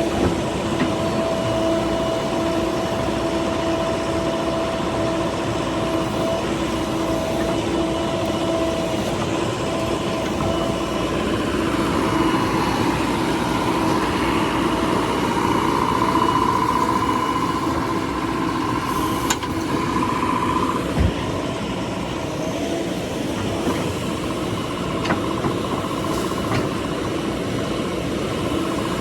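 JCB 3DX backhoe loader's diesel engine running steadily, with a higher whine that swells for several seconds near the middle.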